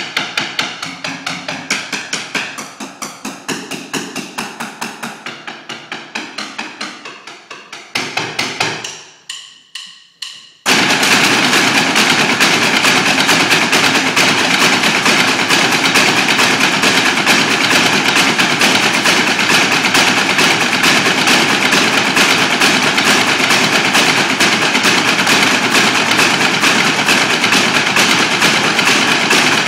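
About ten drummers striking drumsticks on the steps of a stepped ziggurat sculpture. For the first ten seconds or so they play separate, echoing strokes; then all of them suddenly break into a fast, dense roll that stays steady and loud.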